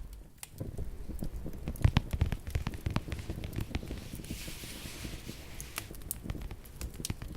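Wood fire crackling in a fireplace: irregular sharp pops over a low rumble, with a brief hiss about halfway through.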